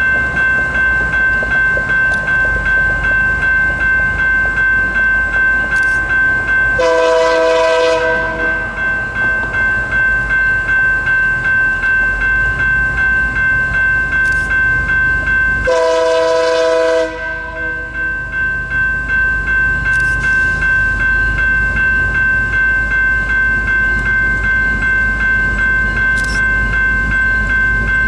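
Locomotive multi-chime air horn sounding two blasts of about a second each, roughly nine seconds apart. Between them runs the steady, evenly pulsing ringing of a grade-crossing bell over the low rumble of a train.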